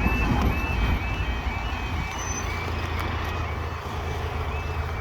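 Level crossing warning alarm sounding during a crossing closure: a short rising electronic tone repeated about twice a second, over a steady low rumble.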